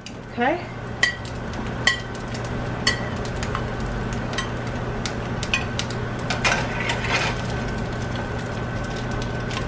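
A slotted spatula scraping and tapping against a nonstick frying pan and a ceramic plate as fried eggs are pushed out of the pan, with oil sizzling faintly. Sharp taps come about once a second at first, with a short squeak near the start, all over a steady hum.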